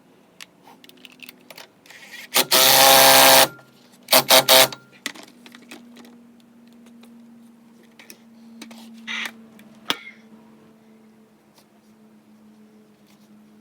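Power tool driving the hub assembly's bolts: a loud run of about a second, then a few short pulses, with scattered clicks of tools on metal. A faint steady hum follows.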